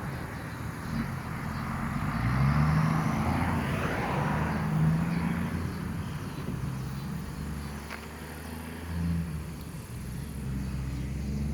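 Heavy diesel semi-trucks passing on a highway: a low engine drone rises and falls in pitch over tyre and road noise.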